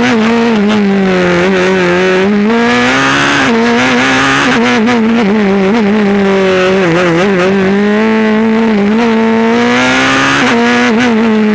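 Honda 2-litre four-cylinder engine of a Norma M20 evo CN sports prototype running hard up a hillclimb, recorded on board. Its pitch sinks and wavers through the bends, climbs steadily, then drops suddenly near the end as the car shifts up.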